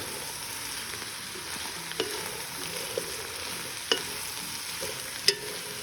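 Mushrooms, onions and green pepper sizzling in coconut oil in a pot as they are stirred, with a steady frying hiss and four sharp knocks of the spoon against the pot.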